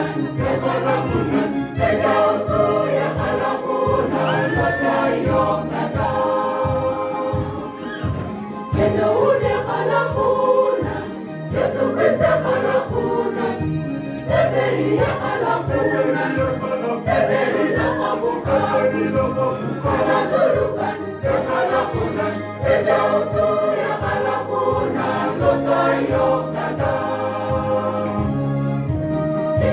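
Parish choir singing a Christmas carol, many voices together over a steady beat in the bass of the accompaniment.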